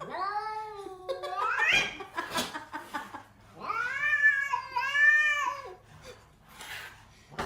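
Cat yowling: two long, drawn-out calls, the first rising in pitch at its end, the second starting about three and a half seconds in and wavering up and down.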